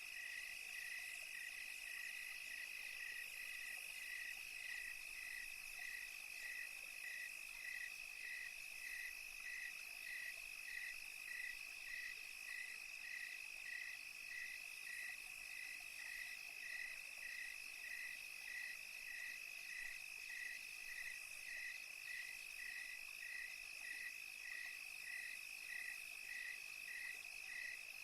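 Night insect chorus of crickets: one steady, unbroken high trill, with a second call chirping in an even pulse about three times every two seconds, over a faint high hiss.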